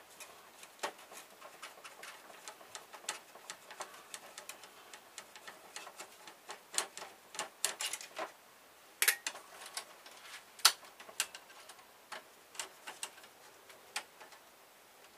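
Irregular light clicks and taps of hands handling the plastic housing and small parts of a printer being taken apart, with a few sharper clicks in the middle.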